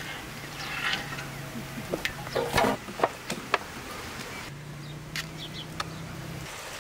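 Handling of a large metal cooking pot and metal serving tray as a whole roast lamb is lifted out: scattered clicks and knocks, thickest from about two to three and a half seconds in.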